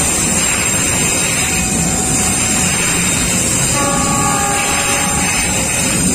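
Loaded container freight wagons rolling past close by, with a steady loud rumble and clatter of wheels on rail. A drawn-out pitched tone rises over it faintly about a second and a half in, and more strongly about four seconds in.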